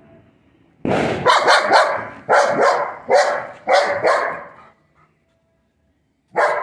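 German Shepherd barking: a quick volley of about nine loud barks, then a pause and one more bark near the end. It is a reaction to fireworks.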